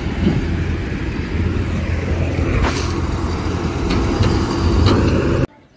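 Steady low rumble of wind buffeting the microphone, mixed with road traffic noise, cutting off suddenly near the end.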